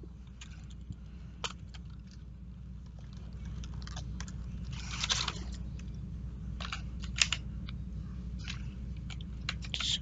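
A small cardboard box being opened by hand and a fidget cube taken out in its plastic bag: scattered crinkles, scrapes and light clicks of cardboard and plastic being handled, over a steady low background hum.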